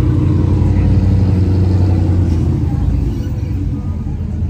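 Fox-body Ford Mustang's engine rumbling deep and steady as the car pulls away, easing off after about three seconds.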